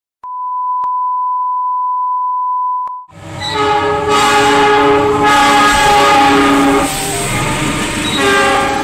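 A steady high beep for about three seconds. Then a diesel locomotive's multi-tone horn sounds a long, loud chord over the rumble of the passing train, its pitches shifting a few times as the locomotive goes by close.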